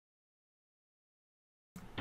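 Silence with no sound at all, then faint room noise with a low hum cuts in abruptly just before the end.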